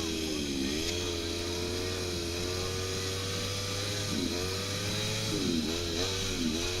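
Snowmobile engine running steadily, its pitch dipping briefly and climbing back several times as the throttle is eased off and reapplied.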